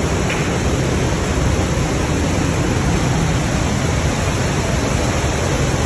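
Zapata Falls waterfall pouring: a loud, steady rush of falling water.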